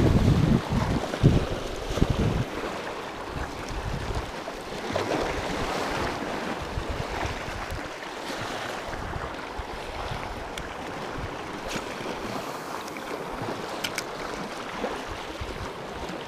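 Sea waves washing against a rocky shore. Wind buffets the microphone heavily for the first couple of seconds, then the sound settles into a steady wash of surf.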